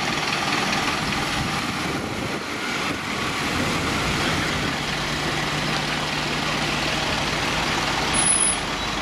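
Diesel engines of fire service trucks running. One truck drives slowly past with a steady engine drone from about four seconds in until near the end.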